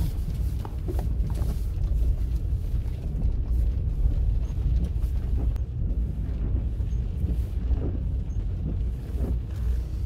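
Steady low rumble inside a car's cabin as it creeps along in the rain, with rain on the windshield and the wiper sweeping across the glass.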